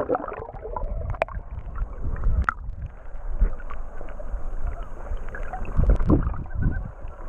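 Muffled underwater sound of sea water heard from a camera held below the surface: a low rumbling slosh with a couple of sharp clicks early on and heavier low thuds near the end.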